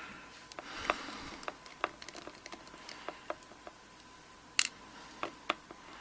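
Scattered light clicks and taps of small tools on a mortise lock cylinder as it is dismantled and its screws are undone, with one sharper click about four and a half seconds in.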